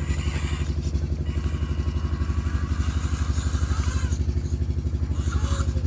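Tractor engine running steadily, with a fast, even beat of about a dozen pulses a second.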